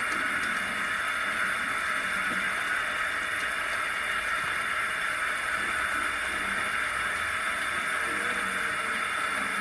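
Steady hiss of a clay pot of boiled elephant foot yam cooking on the lit stove, with only a little water left at the bottom.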